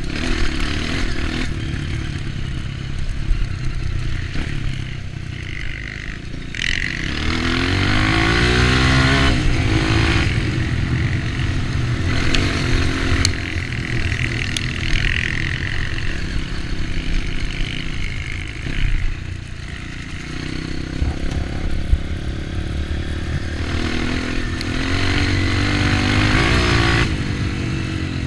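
Off-road trail motorcycle engine running on the move, its revs rising and falling, with two clear climbs in pitch, one about seven seconds in and another near the end.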